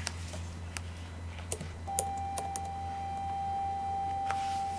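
A few scattered clicks over a low electrical hum, then about two seconds in a steady single-pitched electronic beep held for about three seconds: the interview-room recorder's tone marking the end of a police interview recording.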